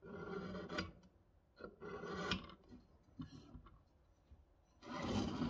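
Steel scriber scratching marking-out lines across a steel locomotive frame plate, in three separate strokes with a slight squeak; the last stroke, near the end, is the broadest.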